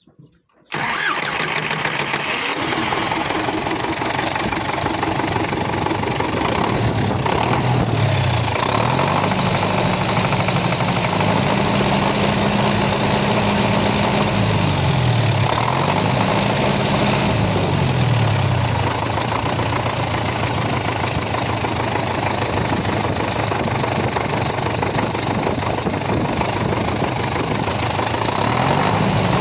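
MTZ-80 tractor's four-cylinder D-240 diesel starting about a second in, firing at once, then running with the throttle opened and closed several times before settling and picking up again near the end. This is the engine's first run after a cylinder-head rebuild. In this state it ran badly, a fault the owner later traced to a failed check valve.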